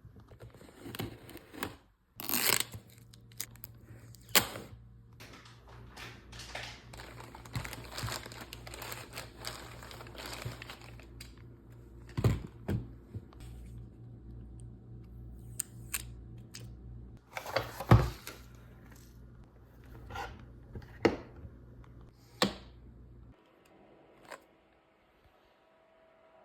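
Keyboard box and packaging being handled and opened: irregular rustling and handling noise, broken by several sharp knocks, the loudest about two-thirds of the way through.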